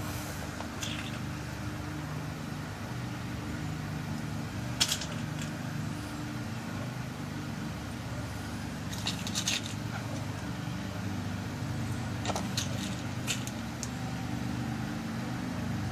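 Small sharp metal clicks and taps as new key pins are loaded into a lock cylinder during a rekey: one about five seconds in, a cluster around nine to ten seconds, and more around twelve to thirteen seconds. Under them runs a steady low hum.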